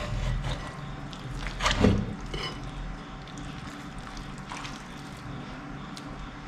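Metal spatula and spoon working through thick fish-head curry in a metal pot, making soft wet sounds of gravy being stirred and lifted, with light scrapes against the pot. A short louder sound comes about two seconds in.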